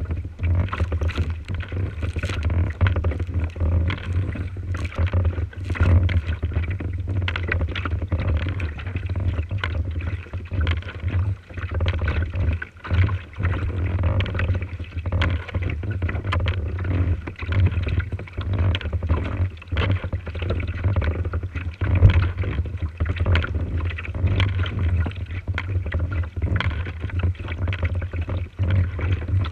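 Wind buffeting the microphone of a camera on a kayak's bow as a steady low rumble, with water splashing and slapping irregularly against the kayak's hull on choppy lake water.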